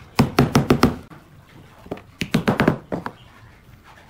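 A hammer tapping small round wooden plugs into holes in a pine table top. There are two quick runs of about six sharp taps each, the first near the start and the second about two seconds in, followed by a couple more single taps.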